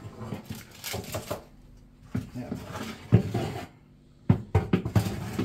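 Metal baking tray scraping along an oven's rack rails as it is pushed in and adjusted, with several sharp metal knocks, the loudest about three seconds in.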